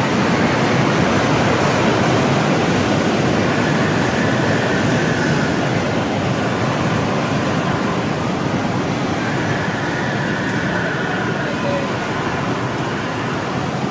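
Steady rolling noise of electric bumper cars driving across the rink floor, mixed with the general din of the ride hall.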